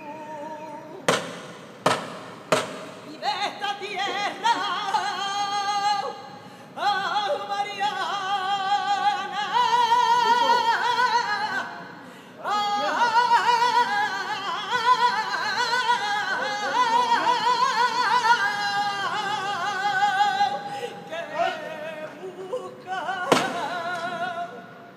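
A woman singing a saeta, the unaccompanied flamenco-style sung prayer to a passing Holy Week image, in long ornamented phrases with a heavy vibrato and a pause for breath about halfway through. A few sharp knocks sound just before she begins, and one more near the end.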